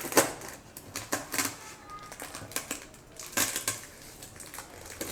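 A cardboard parcel being opened by hand: an irregular run of crackles, scrapes and clicks, with louder bursts about a quarter second in, around a second and a half in, and around three and a half seconds in.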